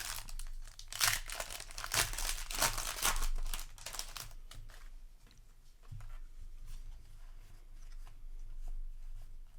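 A Magic: The Gathering play booster's plastic wrapper being torn open and crinkled in the hands for the first four seconds or so, followed by softer rustling and small clicks as the cards are handled.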